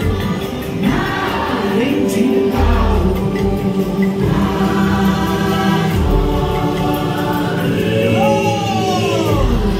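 Ride soundtrack of wordless choral singing over sustained chord tones, with voices gliding up and down and a deep low swell about every three seconds.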